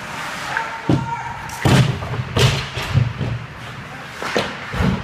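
Ice hockey play along the rink boards: a series of sharp slams and thuds as the puck and players hit the boards and glass, about six hits in five seconds.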